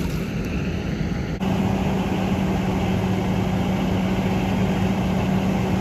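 Fire engine running steadily with a constant hum while its pump feeds the attached hose line; the sound grows louder and steadier about a second and a half in.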